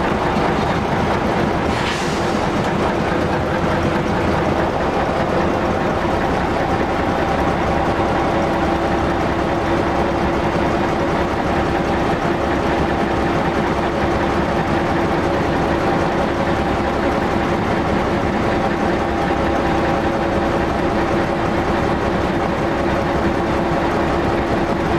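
Walker diesel railmotor under way, heard from inside: a steady engine drone carrying a few fixed tones, over the even noise of the wheels running on the track.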